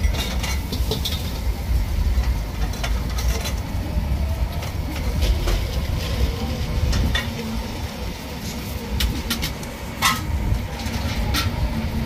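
Metal spoons and ladles clinking and scraping against stainless-steel mixing bowls and pots, in irregular clicks over a steady low rumble of background din, with one sharper clank about ten seconds in.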